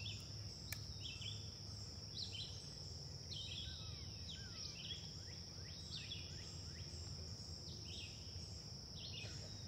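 Wild birds chirping and calling in short, scattered notes over a steady high-pitched insect drone.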